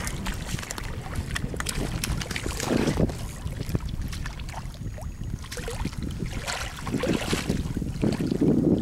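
Wind buffeting the microphone in gusts, with small choppy waves lapping at a rocky shoreline.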